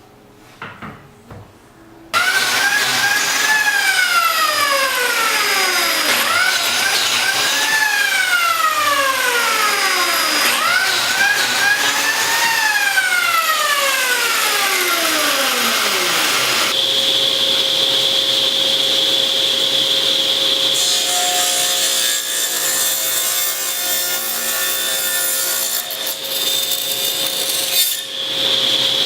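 Power saw cutting wood, starting abruptly about two seconds in. Its pitch jumps up and then slowly sinks over a few seconds, several times, then it settles into a steadier high whine for the second half.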